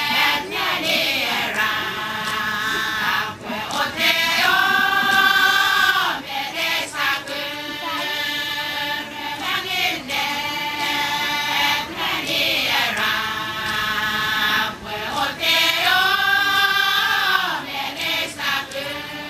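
Satawalese women singing a dance chant together in many voices, in repeated phrases of long held notes.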